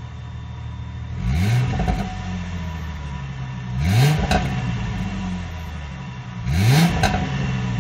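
V6 Ford Mustang on its factory exhaust, idling and revved three times, each rev climbing quickly and dropping back to idle within about a second.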